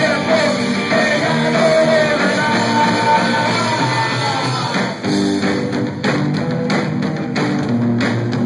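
Live rock band playing: singing over electric guitar, bass guitar and drums. The vocal stops about five seconds in, after a brief drop, and the band plays on with steady drum hits.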